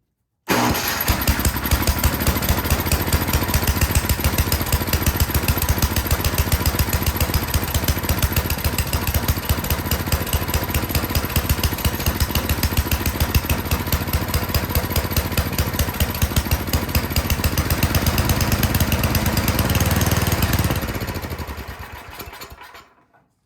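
Toro Power Shift 824 snowblower engine running on full choke with an even, pulsing beat. It begins abruptly about half a second in, then winds down and stops near the end. It will only run on full choke, which the mechanic takes as a sign of a carburetor problem.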